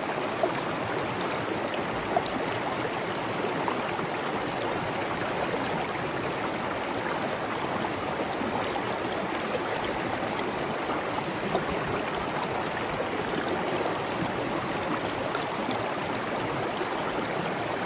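Waterfall: a steady, even rush of falling water, with a few brief louder splashes.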